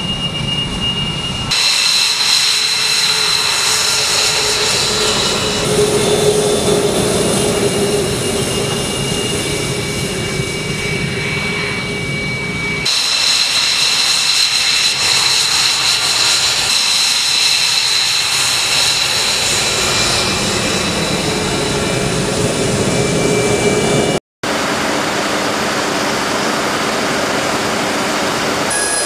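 The twin Pratt & Whitney F119 turbofan engines of an F-22 Raptor running with a steady high whine over a loud rush. The sound changes abruptly several times and drops out for a moment near the end.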